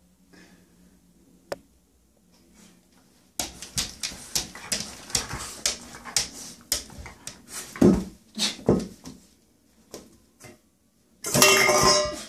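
A puppy's claws scratching and skittering on a shower tray as it scrambles about, with a couple of heavier thumps. A loud cry about a second long comes near the end.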